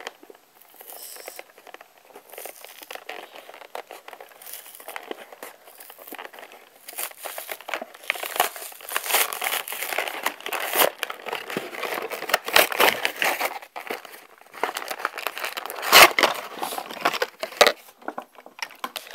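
Toy packaging being opened by hand: plastic and cardboard crinkling and rustling, sparse at first and busier in the second half, with a few sharp knocks, the loudest near the end.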